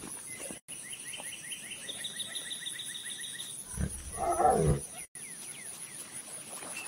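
A big cat gives one short roar, about a second long, a little under four seconds in. Before it comes a quick run of high chirps.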